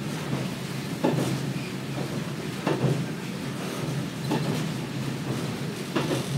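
Kominato Railway KiHa 200 diesel railcar running, heard from inside: a steady low drone of its DMH17-series diesel engine and wheels on the track. Over it come sharp clacks of the wheels passing rail joints, about one every second and a half.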